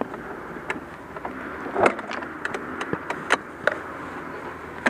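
Yamaha WR250R's 250 cc single-cylinder four-stroke engine idling, with scattered sharp clicks and knocks over it, the loudest a short burst a little under two seconds in.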